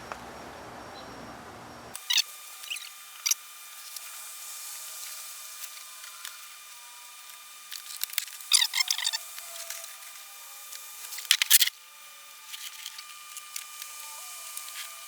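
Scattered sharp clicks and brief squeaky glides over a faint steady high whine, with louder clusters of clicks about eight and eleven seconds in; the low rumble cuts out about two seconds in.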